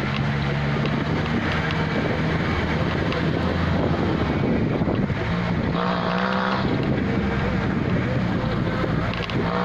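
Car engine running steadily while driving, a constant drone under tyre and wind noise.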